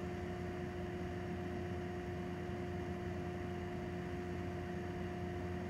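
Steady background hum and hiss with a constant pitched tone, unchanging throughout.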